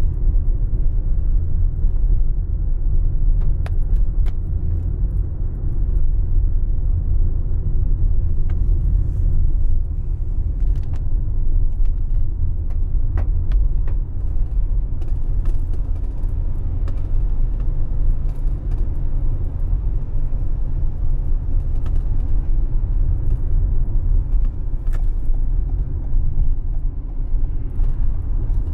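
Steady low rumble of a car driving on a wet road, heard from inside the cabin, with a few faint scattered ticks.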